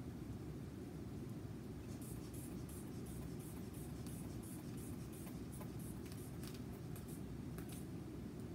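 Rubber hand bulb of a manual blood-pressure cuff being squeezed to inflate the cuff, giving short irregular puffs of air with small valve clicks, about two a second, starting about two seconds in. A steady low hum of room noise runs underneath.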